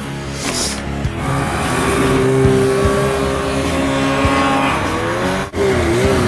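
Snowmobile engine running at speed through deep snow, its pitch held fairly steady. The sound cuts off abruptly about five and a half seconds in and gives way to another sled's engine, whose pitch wavers up and down with the throttle.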